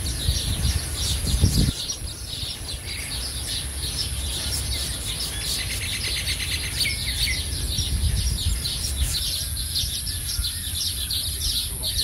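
Baya weavers chattering at their nesting colony, with many quick overlapping chirps throughout. Beneath them run a steady high hiss and a low rumble, the rumble strongest in the first couple of seconds.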